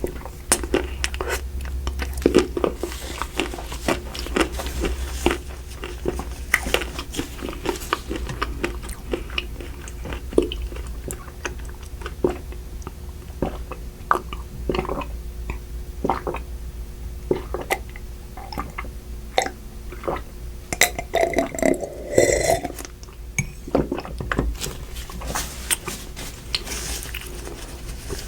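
Close-miked chewing and biting of Magnum double pistachio ice cream, with irregular crunches from its chocolate shell and wet mouth sounds. A steady low hum runs underneath.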